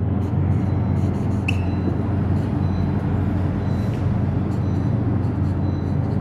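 Steady low hum with a constant hiss, and faint short squeaks of a marker writing on a whiteboard.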